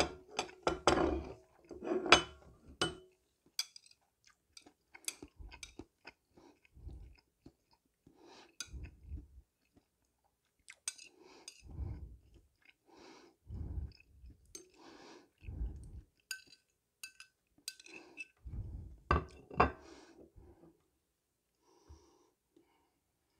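Close chewing of instant noodles and bacon in separate bouts with short pauses. Metal chopsticks click against a ceramic plate in a quick run in the first few seconds and again near the end.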